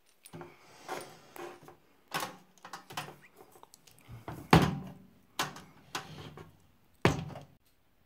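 Handling knocks and thumps on a microwave oven's casing, several separate knocks with rustling in between, the loudest about four and a half seconds in and another near the end.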